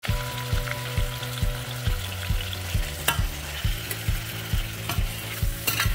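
Beef cubes sizzling as they sear in a stainless steel wok, stirred with a metal spoon that scrapes the pan a couple of times. Under it runs background music with a steady low beat about twice a second.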